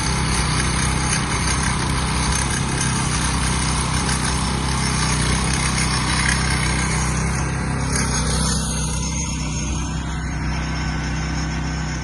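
Engine-driven job-site machine running steadily, a constant engine hum under a loud, wide hiss.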